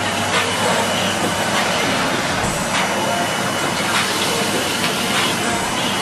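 Henry canister vacuum cleaner running steadily at full suction while its floor tool is pushed over carpet.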